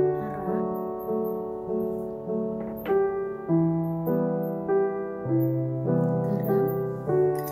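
Background piano music: a melody of held notes, a new note struck about every half second.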